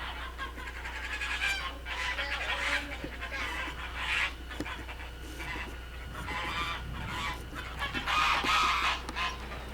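Farmyard poultry calling over and over, with a louder stretch near the end.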